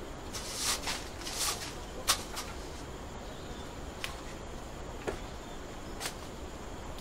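Brief scraping swishes and a sharp tap as a woven fan is worked at a large griddle where a cassava flatbread cooks over a wood fire, followed by a few lighter clicks about a second apart, over a steady low hiss.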